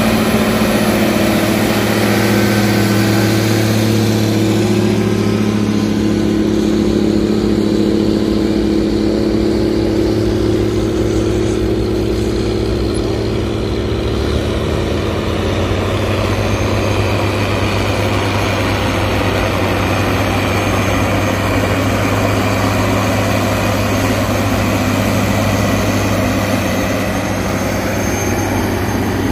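Big diesel engines of four-wheel-drive articulated farm tractors working under load while pulling tillage implements, a steady heavy drone throughout. The engine note shifts slightly about halfway through.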